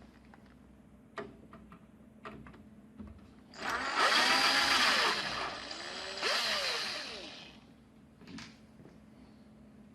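Electric screwdriver running in two bursts, each rising and falling in pitch, backing out the screws that hold a TV power-supply board to its chassis. Light clicks of handling come before and after.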